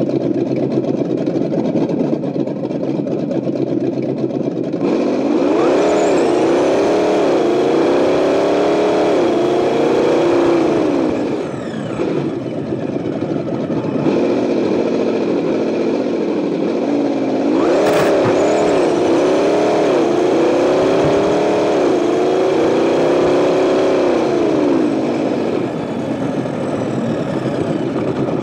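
Simulated engine sound from an Associated ESS-One sound unit aboard a Tamiya Lunch Box RC truck. It holds a steady note at first, then about five seconds in starts revving up and down with the throttle as the truck drives, easing off briefly in the middle, with a sharp click about two-thirds of the way through.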